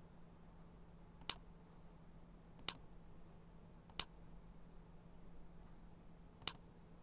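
Four sharp computer mouse clicks, spaced irregularly about one to two and a half seconds apart, over a faint steady hum.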